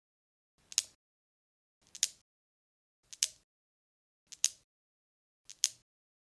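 Newton's cradle balls clicking in a steady rhythm, one sharp click about every 1.2 seconds, five in all. Each click comes as a faint tick followed at once by a louder one.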